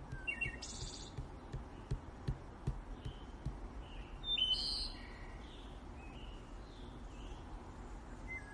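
Faint birds chirping in short, scattered calls, with a few soft low knocks in the first few seconds and a brief louder hiss about four and a half seconds in.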